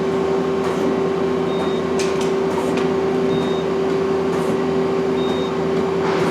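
Okuma LB-200MW CNC lathe's tool turret indexing, with a few light clunks as it turns and locks, over the machine's steady hum. Three short high beeps, about two seconds apart.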